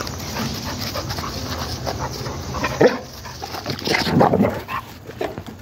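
Two dogs rough-housing in play, giving a few short barks and yelps, the loudest about three and four seconds in.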